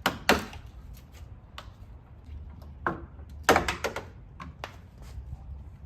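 Hands working plastic grille parts and a wiring connector loose: a series of sharp plastic clicks and knocks, the loudest just after the start and a cluster about three and a half seconds in, over a low steady hum.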